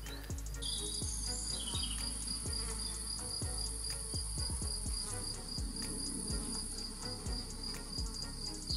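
Insects, crickets or grasshoppers, stridulating in a steady high trill with an even pulse, starting about half a second in. Irregular soft low thumps sound underneath.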